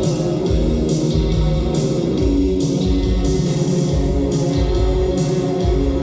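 Live rock band playing: guitars over bass and drums, with cymbal strikes about twice a second and a steady kick-drum pulse.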